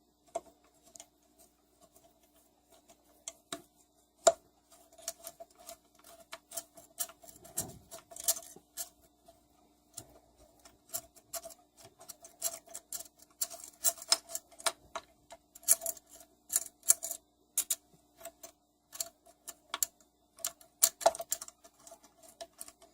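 Ratchet wrench clicking in quick runs with pauses between, as the connecting-rod cap bolts of a Tecumseh small engine are backed out, over a faint steady hum.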